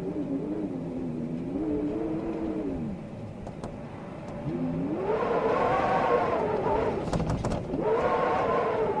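Storm wind howling: a pitched moan that swells and falls away with each gust, loudest in the second half, with a few sharp rattles shortly before the end.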